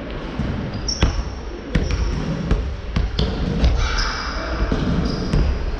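Basketball bouncing on a wooden sports-hall floor in irregular thuds, with short high squeaks of sneakers on the floor. The sounds echo in a large hall.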